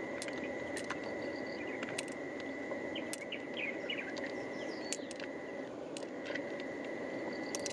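Outdoor creekside ambience: a steady low rush, a continuous high insect drone and short bird chirps. Scattered light clicks run through it, which fit pearls tapping together as they are picked from a freshwater mussel.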